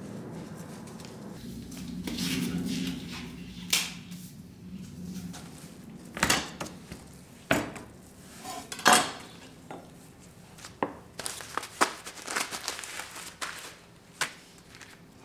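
Metal kitchen utensils clinking and clanking against metal cookware: about a dozen separate sharp knocks, coming in quicker runs in the last few seconds, over a low hum during the first few seconds.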